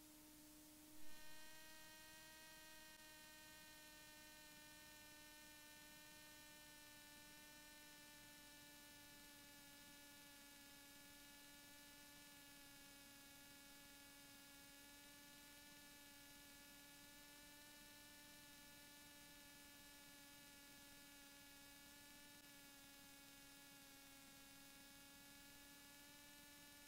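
Near silence: only a faint, steady electrical hum in the audio feed.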